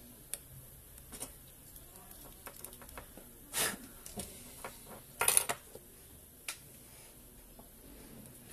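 Scattered small clicks and clatter of a circuit board and its plastic multi-wire connector being handled and plugged together. A short scrape comes about three and a half seconds in, and the loudest burst of sharp clicks about five seconds in.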